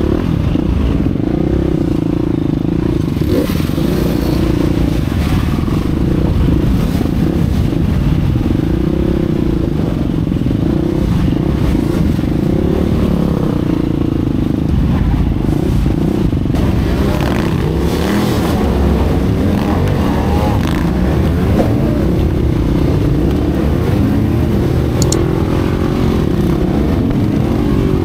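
Several dirt-bike engines running together, idling and being blipped, the nearest one's pitch rising and falling again and again as the throttle is worked.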